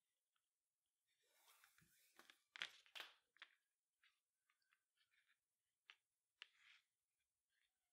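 Faint rustling and crinkling of nylon paracord strands being braided by hand, loudest a couple of seconds in, followed by a few scattered small clicks and rubs.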